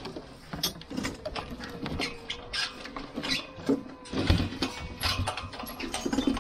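Irregular metal clicks, taps and clanks of a moving-head stage light's clamp being fitted and tightened onto aluminium truss, over a faint steady hum.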